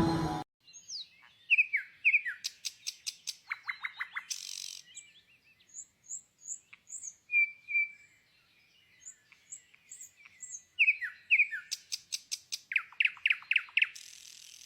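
A songbird singing two similar phrases, each a few quick down-slurred whistles running into a fast, dry trill, with softer high chirps between them.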